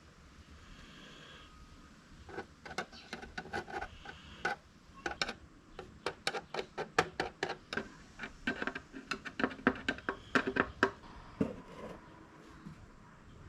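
Irregular sharp clicks and light taps, several a second, from hard plastic parts and small tools being handled. They start about two seconds in and stop about eleven seconds in.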